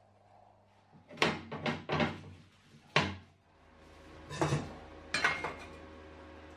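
Steel rectangular tubing clanking and knocking as lengths are laid down and set against magnetic welding squares: a run of about seven sharp metallic knocks, some in quick pairs.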